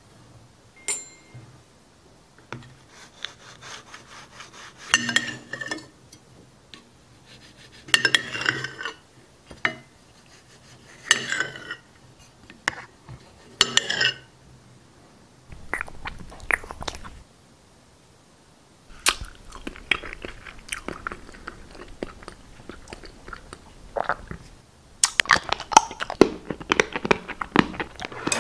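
Crunchy chewing and biting sounds. They come first in separate bursts a few seconds apart, then as a long run of fast, dense crackling crunches that grows loudest near the end.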